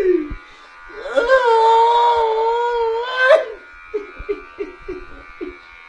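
A man's voice holds one long wailing note for about two seconds, then breaks into a quick run of short clipped syllables, about four a second.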